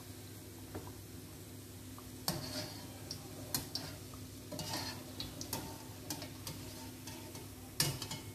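Pieces of kajoor dough deep-frying in hot oil in a karahi, a steady sizzle, with a wire-mesh skimmer clinking and scraping against the pan several times as the pieces are turned and lifted out; the sharpest clink comes near the end. A faint steady low hum sits underneath.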